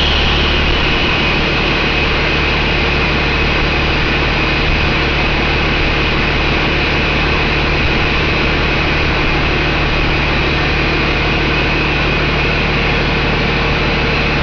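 2013 Paccar PX-8 inline-six diesel engine idling steadily with a high whine over its running. The whine is still settling slightly lower in the first second.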